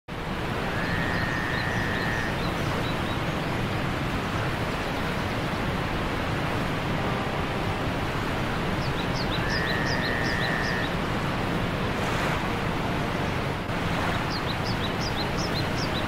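Steady rushing of a waterfall, with birds calling over it: short runs of high chirps near the start, around the middle and near the end, and a level whistled note twice.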